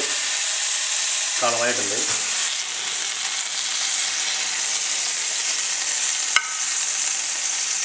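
Hot oil and pan juices sizzling steadily in a frying pan over full heat, as seared chicken breast is lifted out with tongs. A single sharp click sounds about six seconds in.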